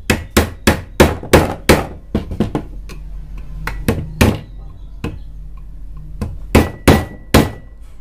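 Sharp knocks of a screwdriver against the metal fan cover of a Kärcher vacuum cleaner motor as the cover is pried off: a quick run of about six in the first two seconds, a few scattered ones, then three more near the end. Some knocks are followed by a faint ring.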